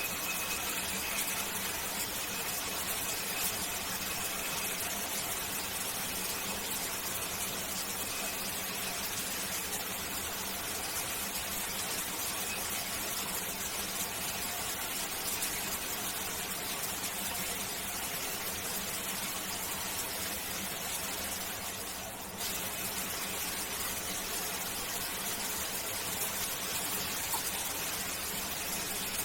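Shower spray running steadily: an even, unbroken hiss of water. The hiss dips briefly about two-thirds of the way through, then comes straight back.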